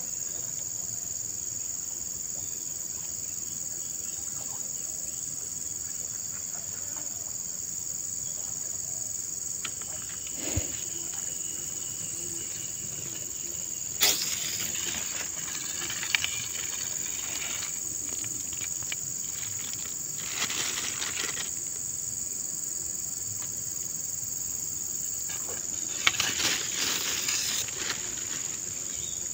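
Steady, high-pitched chorus of insects, broken a few times by short rustles and knocks; the sharpest come about halfway through and near the end.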